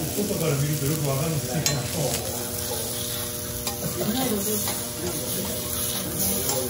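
Wagyu steak sizzling on a steel teppanyaki griddle, with a few sharp clicks and scrapes as a knife and spatula work against the steel plate.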